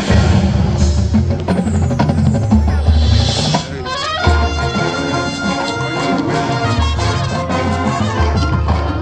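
High school marching band playing: brass over heavy drum and low-brass hits, sweeping upward about four seconds in into a long held brass chord.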